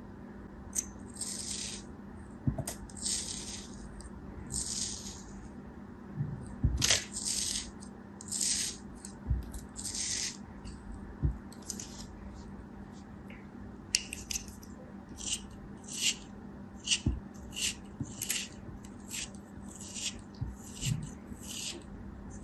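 Hands handling packaging and kinetic sand, making a series of short hissing rustles and scrapes. At first there are a few longer strokes, then from about halfway on, quicker and shorter strokes come about twice a second, over a faint steady hum.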